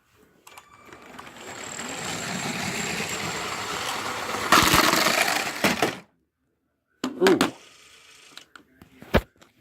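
A motorised Lego train running along its track, with a steady motor whine, grows louder for about four seconds, then crashes into a toy vehicle with a loud clatter of plastic pieces. After a second of silence come a few short clatters and a click.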